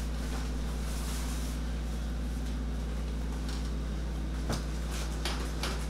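A steady low hum, with a couple of faint clicks about four and a half and five seconds in.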